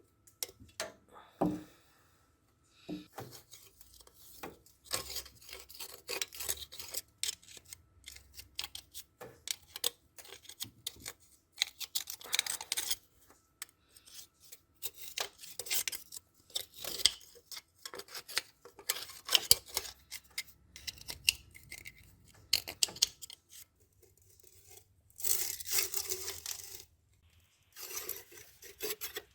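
Hand tools working on engine parts: a long run of irregular clicks, taps and short scrapes, with a longer, louder scraping stretch near the end.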